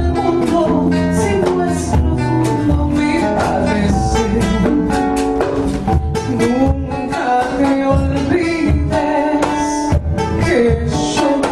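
A woman singing with an acoustic guitar accompanying her, performed live.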